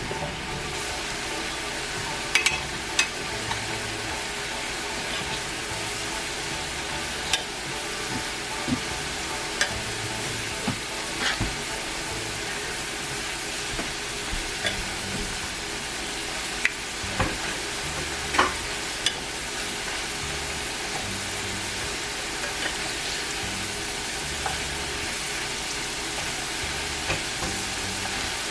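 Potato fries deep-frying in hot oil: a steady sizzle with scattered sharp pops and clicks.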